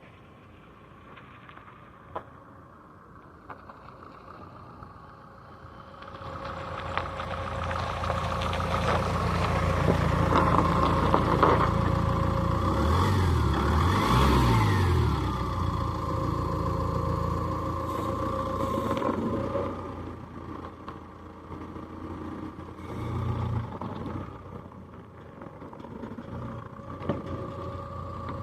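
Mahindra Thar CRDe's stock four-cylinder diesel engine running, faint at first and growing louder about six seconds in. It is revved up and down a few times around the middle, then drops back toward a lower, steadier running sound with a couple of smaller swells.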